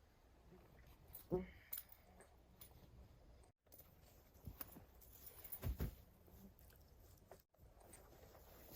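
Quiet outdoor ambience with a few soft, short knocks and rustles, the clearest about a second and a half in and near six seconds. The sound cuts out to dead silence for an instant twice.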